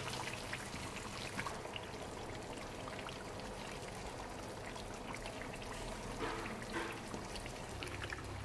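Shrimp and sausage simmering in a saucy seafood boil sauce in a frying pan, with a steady soft bubbling hiss. A wooden spoon stirs through it, making small scrapes and clicks.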